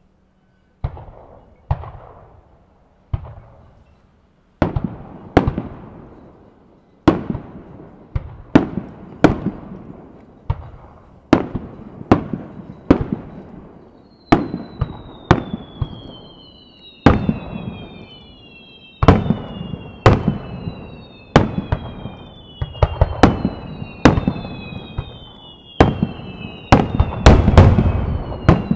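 Aerial firework shells bursting one after another, each a sharp boom with a rolling echo, coming faster and bunching into a dense barrage near the end. From about halfway, several high whistles fall in pitch among the bursts.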